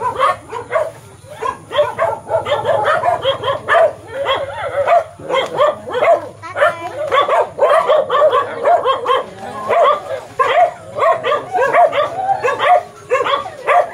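Dogs barking excitedly in quick, short barks, one after another, with only brief pauses.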